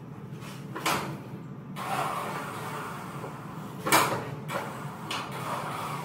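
Honda Civic hatchback being let down backward off a car-hauler trailer on a remote-controlled winch. Metal clunks and creaks from the car and trailer: a sharp clunk about a second in and a louder one about four seconds in, over a steady low hum.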